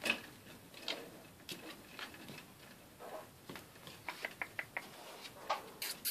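Light, irregular clicks and taps of plastic vertical blind slats knocking together as cats push through them and paw at them on a windowsill, with a quicker run of ticks about four seconds in.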